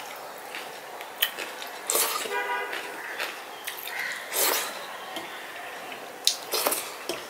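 Eating rice and lentil dal by hand from a steel plate: wet squishing of fingers mixing the food, mouth and chewing sounds, and several short sharp clicks, with a brief pitched tone about two and a half seconds in.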